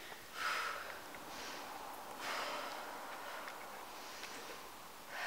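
A woman breathing hard under exercise effort: several heavy breaths in and out, about one to two seconds apart.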